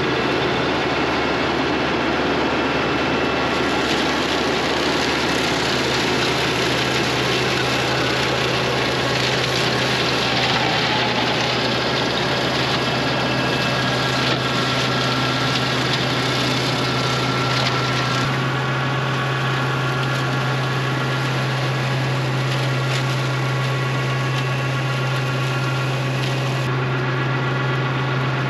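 TYM 574 tractor's diesel engine running steadily under load, driving a PTO flail mower that whirs as it chews through brush and dead grass. The rushing, higher part of the noise eases about two thirds of the way through while the engine hum holds.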